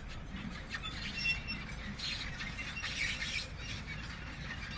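Manure spreader running: its mechanism rattles and clicks irregularly, with short high squeaks.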